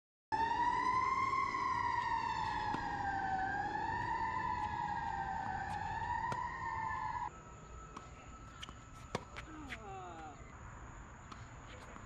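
A siren wails, its pitch slowly rising and falling, and cuts off abruptly about seven seconds in. Quiet outdoor ambience follows, with a steady high insect whine and a few sharp knocks.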